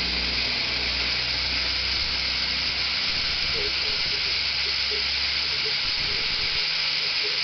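Duct-cleaning machine running during cleaning of a kitchen extract duct: a steady loud hiss of rushing air over a low motor hum, which fades out about three seconds in.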